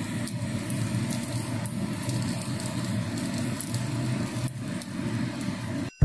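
Chinese chive pockets pan-frying in oil: a steady sizzle with scattered faint crackles and pops. It cuts off suddenly just before the end.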